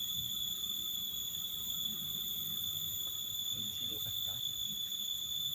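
Steady, high-pitched drone of insects, unbroken throughout, over a faint low rumble.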